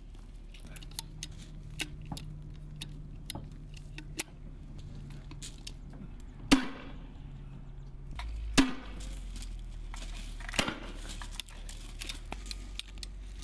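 Gunfire on an outdoor range: two loud shots about two seconds apart in the middle, a lighter one a couple of seconds later, and many faint sharp reports and clicks scattered throughout.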